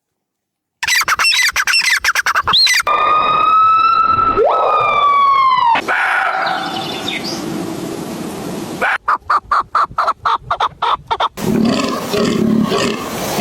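A string of different animal calls cut one after another: quick chirps, then long whistled calls that fall in pitch again and again, then a fast pulsing call.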